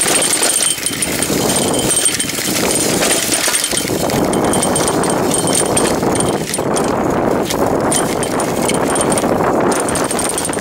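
Mountain bike riding fast down a rough dirt singletrack: tyres rolling over dirt and rock, the bike rattling and knocking over the bumps, with steady rushing noise from wind over the microphone. The rumble grows louder about four seconds in.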